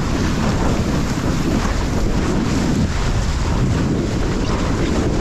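Loud, steady wind buffeting a GoPro's microphone, a low rumble over the rush of water under a windsurf board while sailing in waves.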